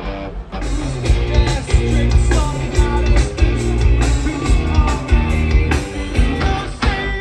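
Live rock band playing loud through a festival PA: drums, bass and electric guitars with singing, heard from within the crowd. The full band comes in hard with heavy drum hits about half a second in.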